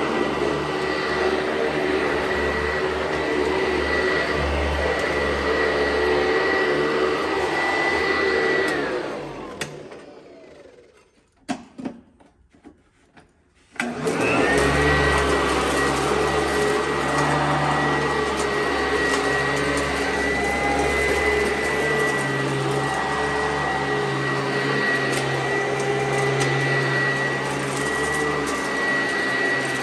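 Sanitaire commercial upright vacuum cleaner running with a steady high whine. About nine seconds in it is switched off and its motor winds down, a few clicks follow, and about five seconds later it starts up again and runs steadily.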